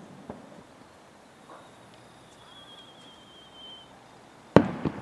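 Fireworks: a faint, thin wavering whistle, then a loud, sharp firework bang near the end, followed at once by a second, smaller report.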